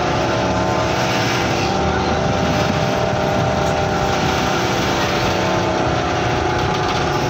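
Bus engine and road noise heard from inside the cabin of the moving bus: a steady drone with a constant hum.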